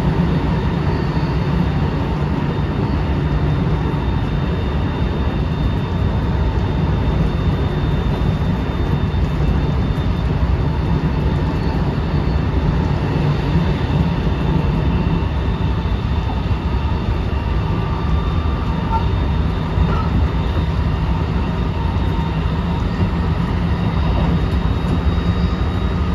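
Running sound inside a JR West 223 series 2000-subseries intermediate motor car with a Hitachi IGBT VVVF inverter, moving at speed: a steady, loud rumble of wheels on rail and the bogie, with faint steady high whines above it from the drive equipment.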